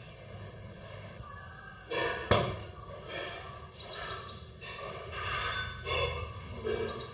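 A single sharp knock about two seconds in, then several short pitched sounds.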